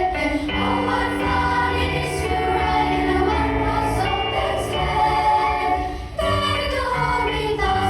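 A choir singing a Christmas medley in harmony, holding long chords that change together. The voices break off briefly about six seconds in and come straight back in.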